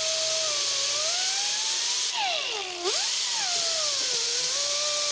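Power drill drilling out snapped-off bolts, its motor whine wavering and dropping sharply as the bit bites about three seconds in, then recovering.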